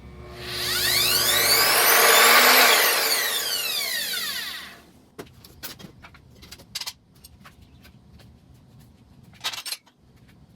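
Evolution R255SMS multi-material sliding mitre saw running briefly: the motor rises in pitch for about two seconds, then winds down over the next two. A few light knocks and clicks follow.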